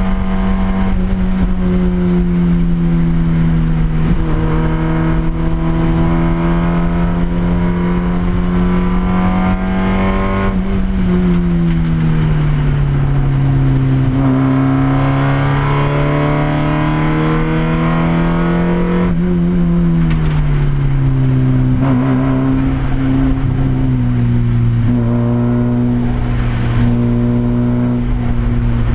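Race car engine heard from inside the cabin, pulling at steady revs on track; its pitch drops about a third of the way in, climbs slowly, then drops again about two-thirds of the way in and holds steady.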